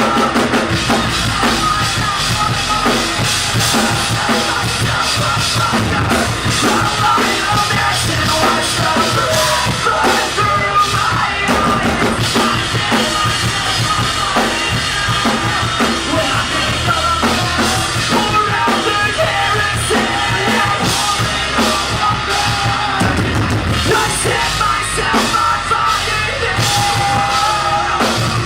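Live rock band playing loudly: drum kit and guitars driving on without a break, with yelled vocals over them.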